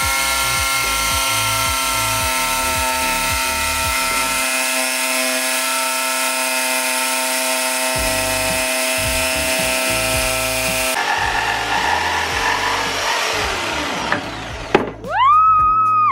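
Jigsaw running steadily as its blade cuts through a painted wooden cabinet panel. Late on the motor winds down, then spins up again to a steady whine and cuts off.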